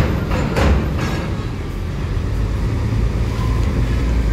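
Heavy truck's diesel engine running as it pulls forward, a steady low rumble. Near the start come two short hisses of air about half a second apart.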